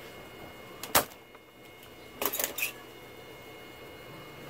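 Spring-loaded desoldering pump (solder sucker) firing on a heated solder joint: a sharp snap about a second in, then a short cluster of clicks a little over a second later.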